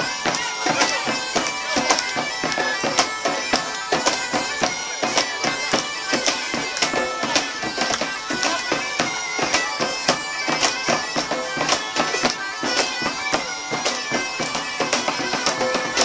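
Bagpipes playing a folk tune over steady drones, with drums beating a quick, even rhythm.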